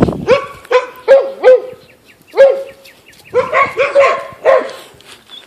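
Puppies barking in short, high yips: a quick run of four in the first second and a half, a single one, then another cluster of four before they stop near the end.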